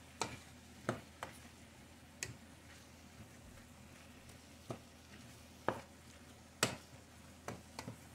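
Wooden spoon stirring chunks of chicharrón pork in a stainless steel pot, knocking and scraping against the pot about nine times at uneven intervals, over a faint sizzle of the cooking mixture.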